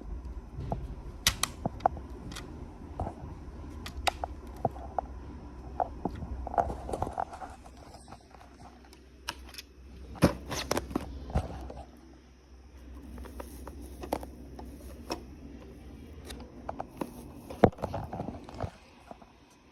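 Irregular sharp clicks and light knocks of small hard objects over a low steady rumble that stops near the end.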